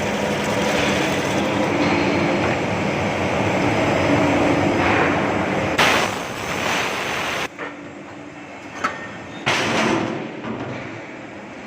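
Metal-chamfering machine cutting a bevel into metal, a loud, dense grinding and rattling cutting noise that drops off sharply about seven and a half seconds in. A couple of sharp metallic knocks follow near the end.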